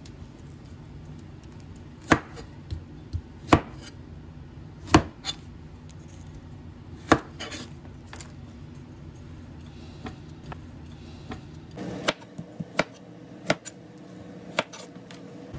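Kitchen knife cutting vegetables on a cutting board: single cuts a second or two apart, then a quicker run of chops near the end.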